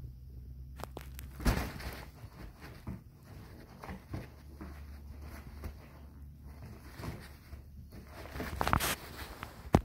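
Cat tunnel rustling and crinkling, with scattered small clicks, a heavier thump about a second and a half in and a sharp knock near the end.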